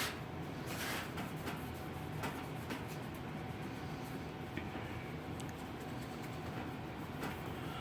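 Steady low rumble and hum in the background, with a few faint scattered clicks and rustles.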